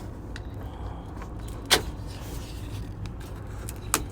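Two sharp snips about two seconds apart, cutting through the taped wiring harness in the car's trunk, one cut on each side; the first is the louder. A low steady rumble runs underneath.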